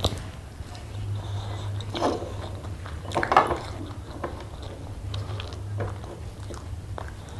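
Close-miked chewing and biting of food, with wet mouth clicks and smacks. The loudest burst comes a little after three seconds in, over a steady low hum.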